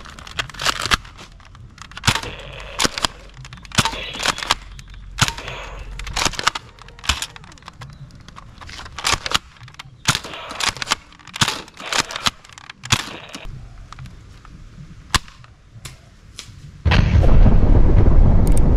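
A string of sharp shots, irregular and a few a second, as a Nerf Elite 2.0 Commander blaster fires at targets. About 17 seconds in, a loud explosion breaks in and goes on as a sustained rumble.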